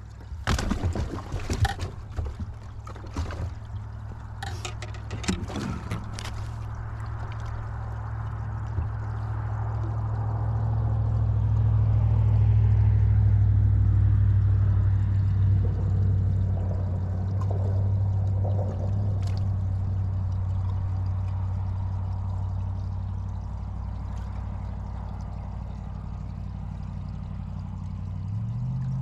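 A boat's motor running steadily with water noise along the hull, growing louder as it speeds up in the middle. The first few seconds hold a string of sharp knocks.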